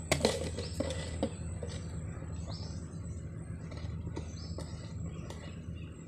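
Faint light clicks and rustles of plastic as a corrugated washing-machine hose and a clear plastic cup cover are handled, over a steady low hum, with a few brief bird chirps.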